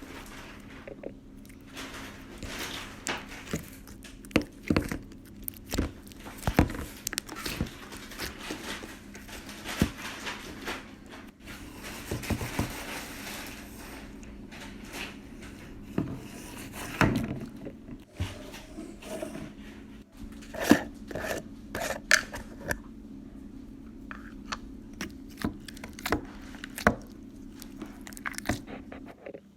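Slime being squeezed, stretched and poked by hand, giving irregular sticky clicks, pops and crackles over a faint steady hum.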